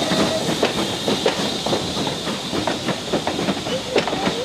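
Passenger coaches rolling past behind a BR Standard Class 4MT 2-6-0 steam locomotive, their wheels clicking irregularly over the rail joints, with the locomotive's steam hissing as it draws away.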